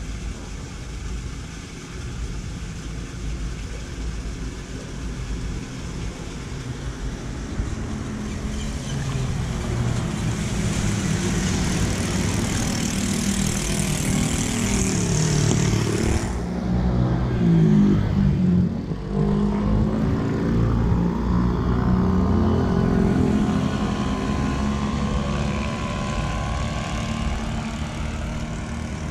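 Motor vehicle engine running, its pitch rising and falling as it grows louder to a peak about two-thirds of the way through, then easing, over a steady low rumble. A high rushing hiss runs through the middle and stops abruptly.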